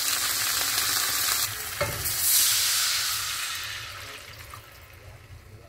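Chicken pieces sizzling in hot oil in a skillet, with a light knock about two seconds in. The sizzle flares briefly, then dies away as liquid is poured into the pan and cools it.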